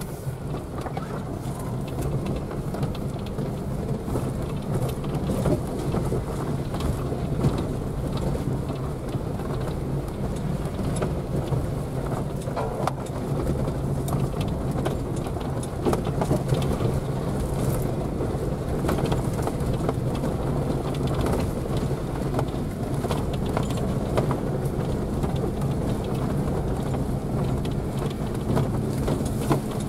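Jeep Wrangler JK heard from inside the cabin while driving slowly along a rough dirt forest track: a steady engine and tyre drone with frequent small knocks and rattles from the bumpy road.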